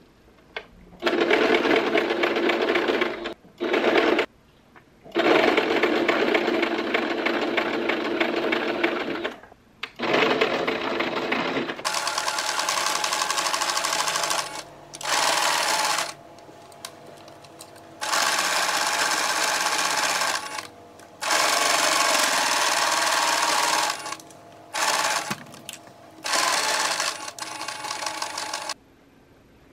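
Electric sewing machine stitching through layered fabric in stop-and-start runs, about eleven in all, lasting from half a second to about four seconds, with short pauses between them.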